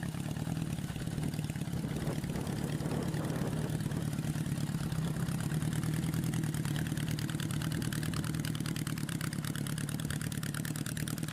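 Custom Honda CB750's four-cylinder engine idling steadily.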